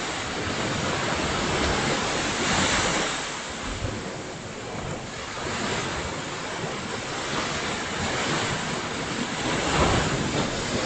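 Ocean surf breaking and washing up on a beach: a steady rush of water that swells twice, around two to three seconds in and louder near the end.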